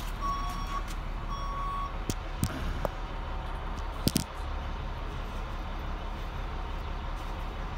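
Truck's reversing alarm sounding two long, evenly spaced beeps that stop about two seconds in, over the steady low rumble of the truck's engine. A few sharp knocks follow between about two and four seconds in.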